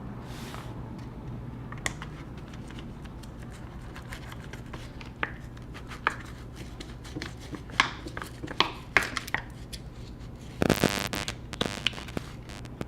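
Scattered clicks and scrapes of a tool working at a MacBook Pro's battery cells to pry them out, with a short rasping, tearing burst near the end. A steady low hum runs underneath.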